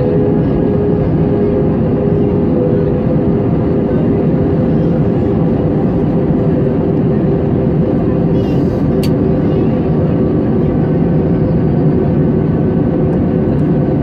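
Jet airliner heard from inside the cabin: a steady roar of engines and rushing air with a constant hum under it. A single sharp click about nine seconds in.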